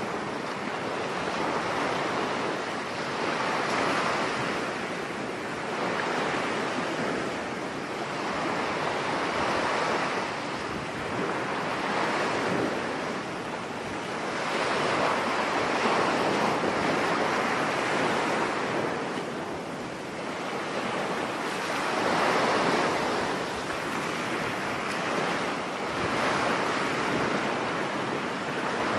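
Stormy sea surf breaking on a beach with wind, the wash swelling and easing about every five to six seconds.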